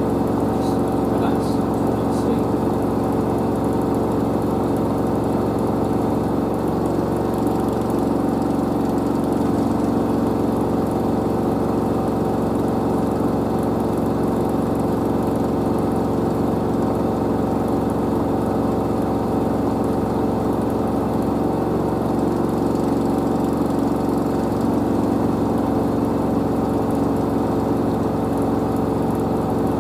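LG DirectDrive F1496AD washer dryer spinning its load at high speed: a steady hum from the direct-drive motor and drum, with several held tones and no change in pitch.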